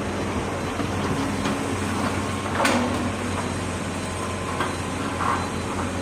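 Heavy excavator's diesel engine running steadily, with a few short sharp knocks from the machine working, the clearest about two and a half seconds in.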